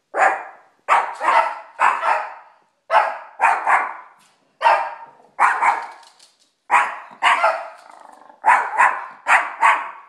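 Small Yorkshire terrier barking over and over: short, sharp barks in quick runs of two or three.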